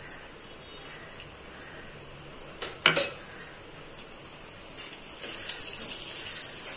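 Two sharp knocks of a utensil on a metal kadai, then whole spices (cumin seeds, bay leaf, cinnamon, cardamom) sizzling in hot oil as they are stirred with a spatula. The sizzle grows louder about five seconds in.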